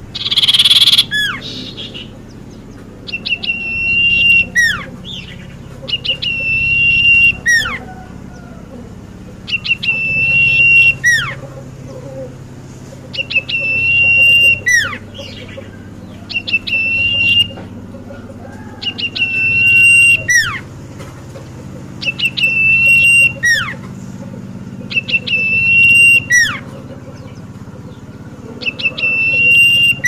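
Caged common iora (cipoh) singing loudly in repeated phrases about every three seconds. Each phrase is a held, trilling note with sharp falling whistles around it, and a single harsh rasping note comes right at the start.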